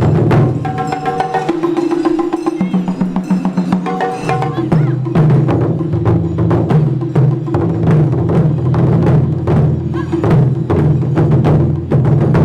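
Festival music with drums and rapid wooden clicks over long held low notes that change pitch every second or two.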